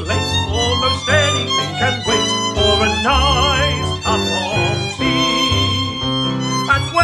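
Violin playing an instrumental passage with vibrato, over sustained low accompaniment notes.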